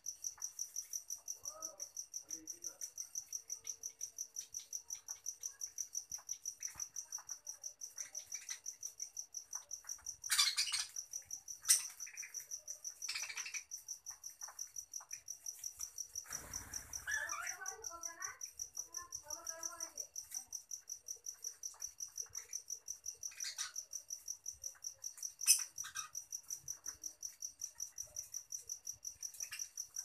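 A cricket chirping steadily at a high pitch, about three chirps a second, throughout. Over it are budgerigars' short chirps and warbles, mostly around the middle, a few sharp clicks, and a brief rustling flutter.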